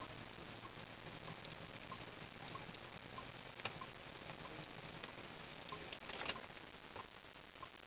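Faint, even ticking about twice a second over a low hiss, with one sharp click about halfway through and a short clatter near three-quarters of the way through.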